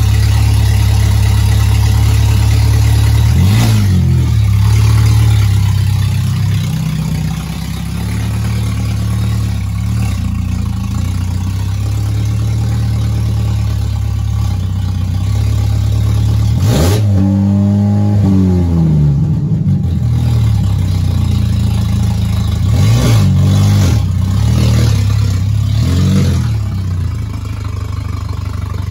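Race-prepped VW Golf four-cylinder with a big aftermarket cam and only a few inches of exhaust, running loud and lumpy as it is driven slowly. It is blipped several times, with the biggest rise and fall in revs about halfway through.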